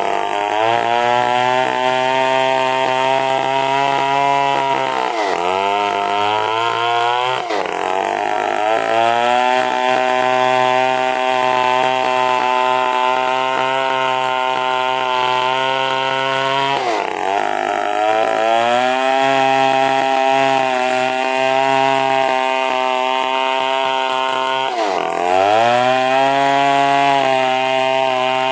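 Stihl chainsaw running at high revs while ripping an angsana log into planks. Its pitch dips and climbs back four times, at about 5, 7, 17 and 25 seconds in.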